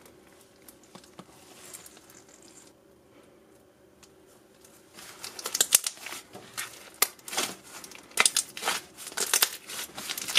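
Hands squeezing and kneading thick, fluffy slime, making sticky crackling and popping as air pockets burst. It is soft and faint at first, then about five seconds in turns into a dense run of loud crackles and pops.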